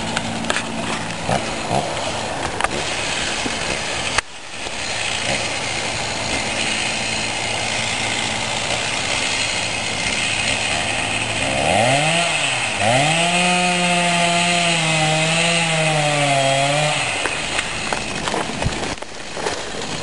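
A two-stroke chainsaw runs at a distance and is revved up about twelve seconds in. It then holds a steady pitch for about five seconds while cutting into the tree trunk during a plunge-cut felling, and drops back near the end.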